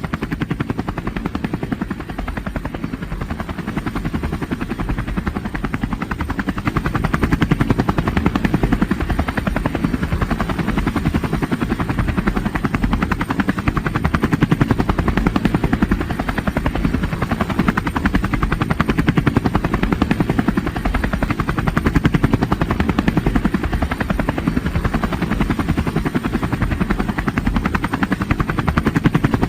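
Helicopter rotor sound: a steady, rapid chop of the blades over engine noise, keeping an even pace.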